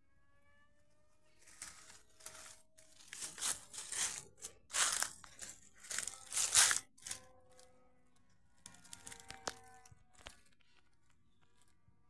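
Footsteps crunching through dry fallen leaves on the forest floor: a run of uneven crunches starting about one and a half seconds in and loudest around six to seven seconds, then a few fainter rustles and crackles.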